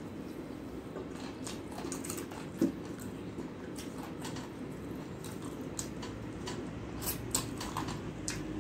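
Close-up eating sounds: mouth clicks and smacks while chewing chicken, with fingers picking at food on a steel plate, over a steady low hum. A single sharper knock about two and a half seconds in.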